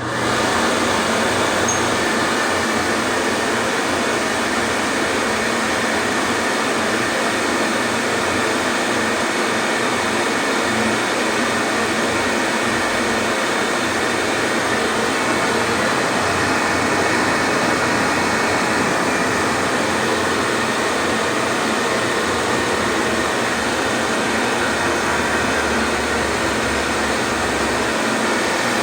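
Vintage 1986 Dicomaco Tew TCO 1500 ES push-button hand dryer running, its fan blowing a steady rush of air over a low motor hum. It comes up to full power at the start and holds level throughout.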